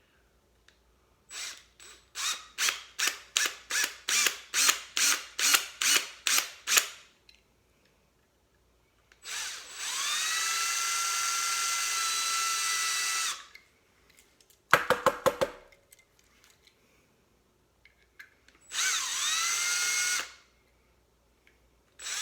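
Power drill drilling out the rivets of a die-cast toy car: a string of short trigger bursts, about two a second. Then two longer runs, each rising in pitch as the motor spins up before holding steady.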